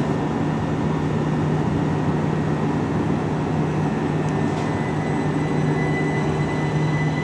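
Southeastern Class 375 electric multiple unit standing with its equipment running: a steady hum with a constant low tone and a faint high whine.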